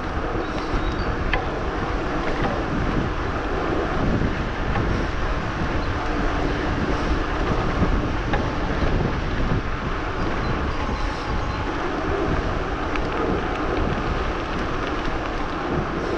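Wind rushing over the action-camera microphone, with tyre and drivetrain noise from a hardtail e-mountain bike riding a forest trail. Small clicks and rattles come through now and then.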